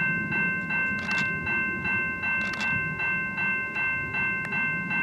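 Railroad grade-crossing bell ringing steadily, about three strikes a second, over the low rumble of an approaching CP AC4400CW diesel locomotive.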